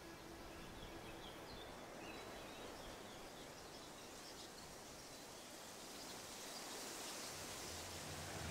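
Faint outdoor ambience: a steady hiss of background noise with a few faint bird chirps. Near the end, a low held tone swells in.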